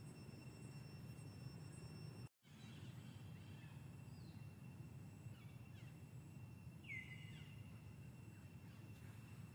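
Near silence: faint outdoor forest ambience with a thin steady high tone and a few faint chirps, including one clearer short falling call about seven seconds in. The sound cuts out completely for a moment a little over two seconds in.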